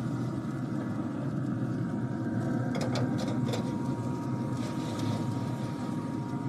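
A steady low rumble with a faint constant tone above it, and a few quick metal clicks about three seconds in as a wire rack of corn on the cob is set down on the pellet grill's grate.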